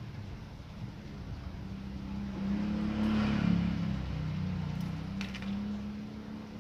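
A motor vehicle's engine running, growing louder about two seconds in and fading away again. A few faint clicks follow near the end.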